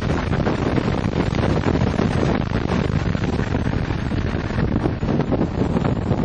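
Steady in-cabin rush of wind, road and engine noise from a 2006 BMW E46 M3 driven at speed on a racetrack, with the 3.2-litre straight-six buried in the wind noise.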